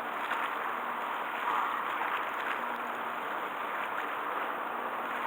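Steady rush of churning harbour water and wind, with a faint low steady hum from a departing Tarumizu ferry's engine underneath.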